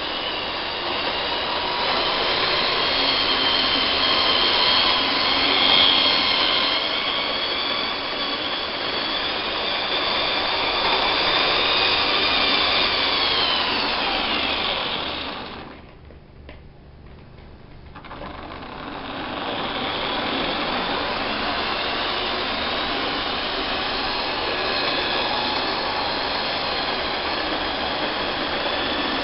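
Lima model trains running on track: a steady running noise with a high motor whine that shifts in pitch. It drops away sharply for a couple of seconds just past halfway, then picks up again.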